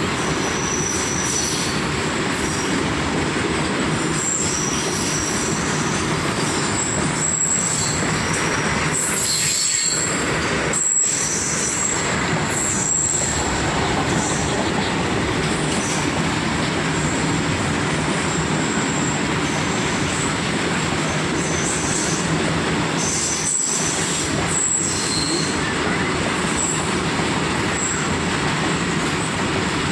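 Goods train's wagons rolling past on the rails in a steady, continuous run, with short high-pitched wheel squeals coming and going.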